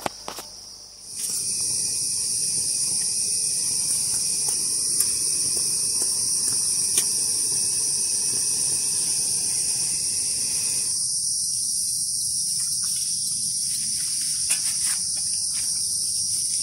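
Loud, steady, high-pitched chorus of insects, starting abruptly about a second in.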